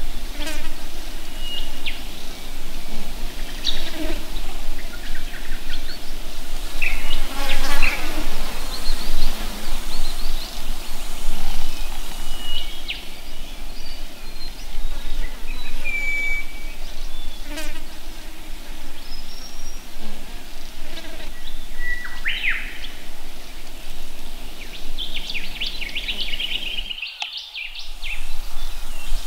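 Outdoor bush ambience of insects buzzing, with short bird chirps and calls scattered throughout. The sound dips away briefly near the end.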